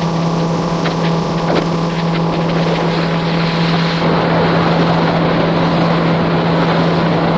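Motorboat engine running at a steady pitch, with wind noise on the microphone.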